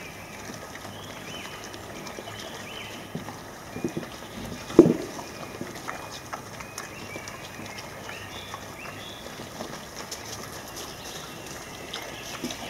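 Wild boar foraging: a short, loud, low grunt about five seconds in, with a few softer grunts and faint rustling in the leaf litter. Small high chirps run throughout.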